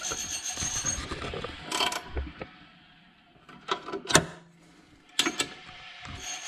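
Scattered sharp clicks and knocks of metal boiler parts being handled and fitted back together in an Ideal Logic combi boiler during reassembly. The clearest clicks come about two, four and five seconds in, with quiet handling in between.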